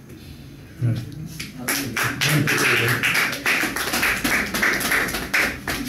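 Many people clapping their hands, a dense patter of sharp claps that starts about a second in.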